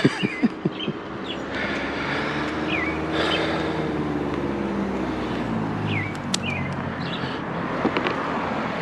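A car driving past on the street, its engine note swelling and then fading over a few seconds. A few short knocks come near the start.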